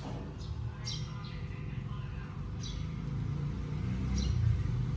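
A small bird chirping repeatedly, one short high call about every second and a half, over a low steady rumble.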